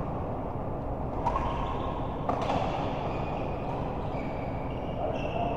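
Doubles match play in a large hall: two sharp hits about a second apart, then a few drawn-out high squeaks, over steady background hall noise.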